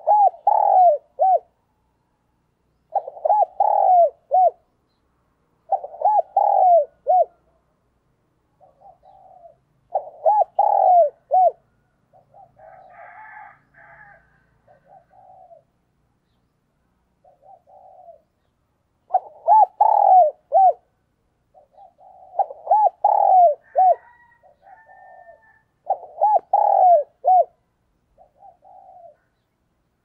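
Spotted dove cooing: repeated phrases of three or four short, arched coos, each phrase about a second and a half long and coming every few seconds. Through the middle the coos turn softer and broken, then loud full phrases return.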